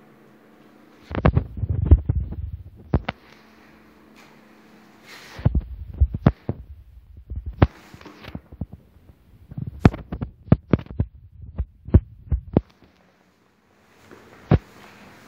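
Footsteps on bare reinforced-concrete stairs and floors: sharp knocks over dull low thuds, coming in three spells, with one lone knock near the end.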